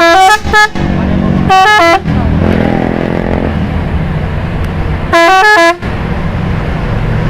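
Bus telolet horn playing short melodic toots that step between notes: two quick ones at the start, another about a second and a half in, and a longer one about five seconds in. The bus's engine runs steadily beneath.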